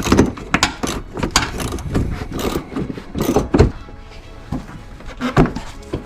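Irregular clicks, knocks and clatter from tools and parts being handled while working on a car's front end, with the loudest knock a little past the middle.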